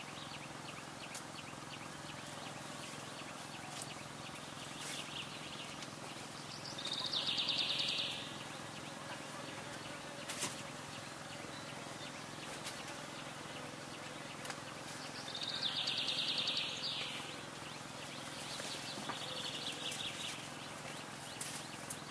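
A bird's high, rapid trill, heard three times, each lasting about a second and a half, over a steady outdoor background. A few faint clicks fall in between.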